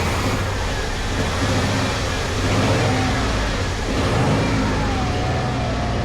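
A vehicle engine running steadily with a low rumble; a faint wavering whine rises over it in the second half.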